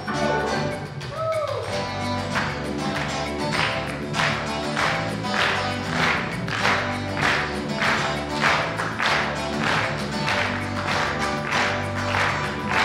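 Backing music with a steady beat, and hands clapping along in time, about one and a half claps a second, starting about two seconds in. About a second in, a voice slides down in pitch.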